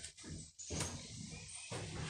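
Footsteps and knocks on old wooden floorboards, with rustling from the phone being handled, and one sharper knock a little under a second in.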